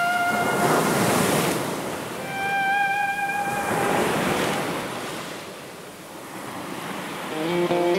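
Slow ambient background music: long held notes over a surf-like wash of noise that swells and fades. Plucked guitar notes come in near the end.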